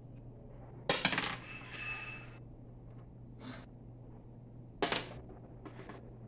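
Dice clicking on a tabletop: a quick clatter about a second in, followed by a short ringing, then a die thrown onto the table clatters to a stop about five seconds in.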